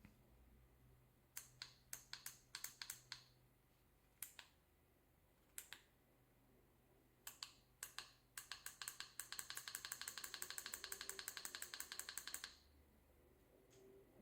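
A series of sharp clicks, scattered and irregular at first, then a rapid, even run of about eight a second lasting about four seconds, which stops suddenly.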